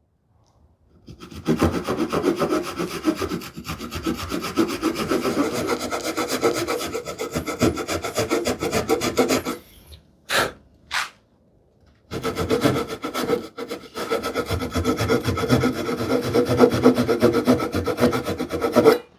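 Hand saw cutting into wood with short, quick strokes, in two long runs with a brief pause and a couple of single strokes between them.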